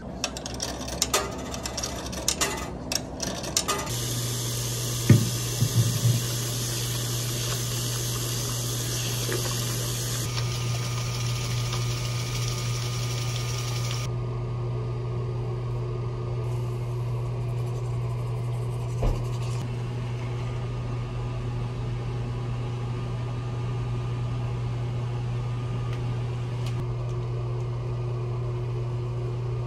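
A steady low machine hum starts about four seconds in and runs on, with a loud hiss of rushing air or water over it for the first several seconds. Clicks and knocks come before the hum starts.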